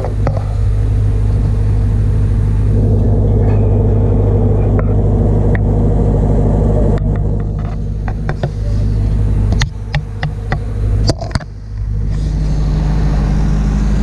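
Generator engine powering a mobile-phone mast, running at a steady low drone, with a few scattered clicks over it.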